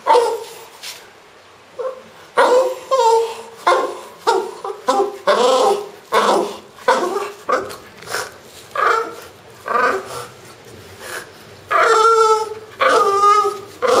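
French bulldog vocalizing with a rubber toy held in its mouth: a long series of short, pitched calls that rise and fall, one every half second to a second, after a brief pause near the start.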